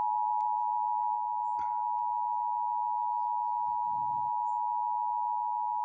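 Emergency Alert System attention tone from a NOAA Weather Radio monthly test: a steady, unbroken electronic alarm tone, the warning alarm that comes before the spoken test message.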